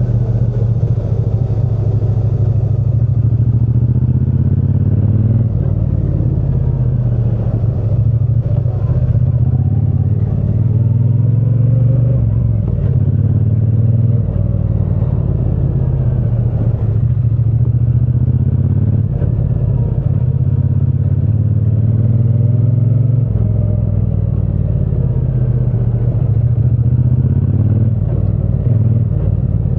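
Triumph Bonneville T120's 1200 cc parallel-twin engine and exhaust running under way, the revs rising and falling as the rider rolls on and off the throttle.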